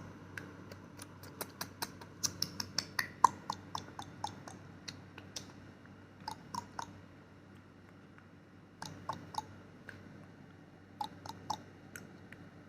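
Irregular sharp clicks in short runs, a few a second, some with a brief hollow pop, with quiet gaps of a second or two between the runs.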